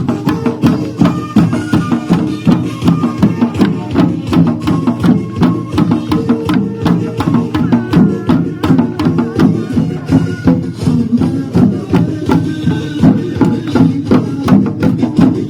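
Lively dance music playing loud, with a steady, fast drum beat.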